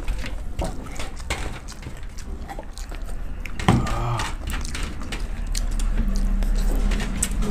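Close-up eating noises: fingers squishing and mixing rice and curry on steel platters, with chewing and lip smacking as small clicks and wet crackles. About four seconds in, one eater lets out a short voiced exhale.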